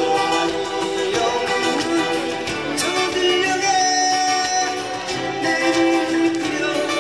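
Live song: a man singing through a microphone and PA over a strummed acoustic guitar, with a second guitar alongside.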